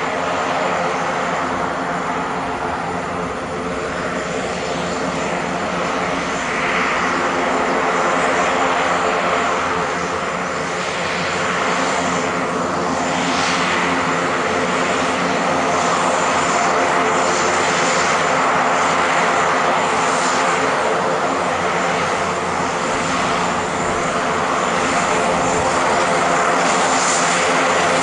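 Beechcraft King Air 350i's twin Pratt & Whitney PT6A-60A turboprops running at taxi power: a steady propeller drone with a thin high turbine whine, growing a little louder in the second half as the aircraft comes closer.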